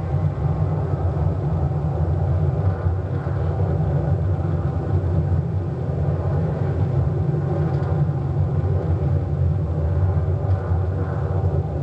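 Movie soundtrack with a deep, steady spaceship engine rumble as a Star Destroyer passes overhead.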